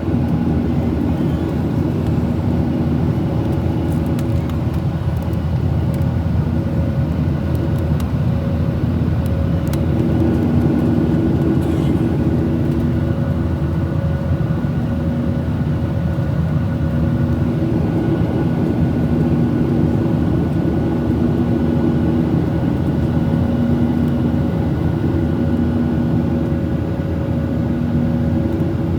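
Steady jet engine and airflow noise inside the cabin of a Boeing 737-800, its CFM56 engines running with a constant hum of several steady tones that swell and fade slightly, and a few faint clicks.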